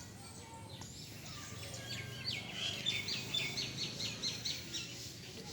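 Bird chirping: a quick run of short, high chirps starting about two seconds in, some four a second, over faint background noise.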